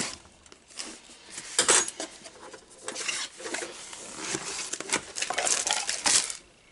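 Cardboard box being opened by hand: flaps pulled open and cardboard sliding and rustling, with scattered clicks and knocks.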